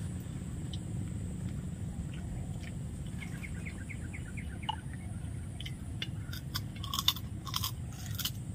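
A steady low hum. Around the middle a bird gives a quick run of about eight short falling chirps, and near the end come several sharp clicks and crackles.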